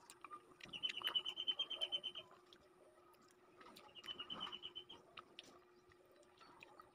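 A small animal's rapid chirping trill, a run of high, evenly spaced chirps at about ten a second, heard twice for a second or so each. Faint clicks of chewing lie between the trills.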